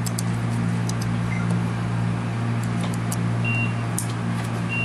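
Steady low hum, with a few faint clicks from the small mounting puck and its screws being handled, and a faint, brief high beep about three and a half seconds in and again near the end.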